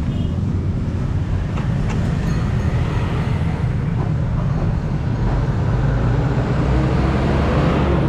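Steady low rumble of motor vehicle engines, swelling in the second half, with a few light metallic clicks from a T-handle socket wrench.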